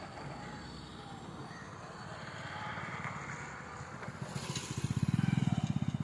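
A small engine running close by, its even, rapid beat growing much louder over the last second and a half.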